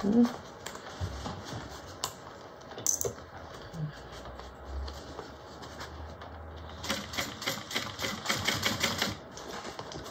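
Juki industrial sewing machine stitching binding onto a canvas bag: a few short clicks and pauses, then a quick, even run of needle strokes about seven seconds in, lasting a couple of seconds.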